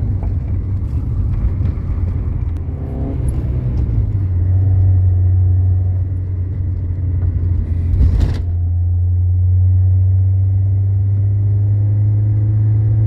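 Car engine and road noise heard from inside the cabin while driving: a steady low drone. About eight seconds in there is one brief thump.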